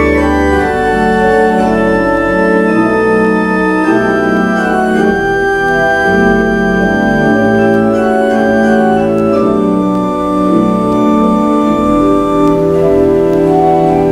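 Pipe organ playing slow, held chords that change every second or two, with deep bass notes coming and going beneath them.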